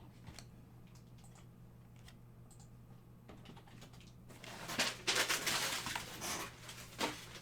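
Trading cards being handled with faint scattered clicks, then, about four seconds in, a few seconds of loud crinkling rustle from a foil trading-card pack being opened and its cards handled.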